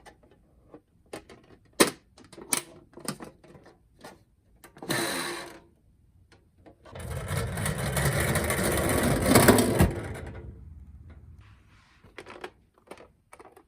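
Plastic toy cars handled with scattered sharp clicks and taps. About seven seconds in comes a loud, even rolling rumble for some three seconds, fading out after it: a toy minicar running down a slope.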